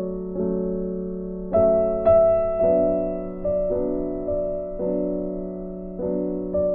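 Background music: slow, sustained chords, a new chord struck every half second to a second.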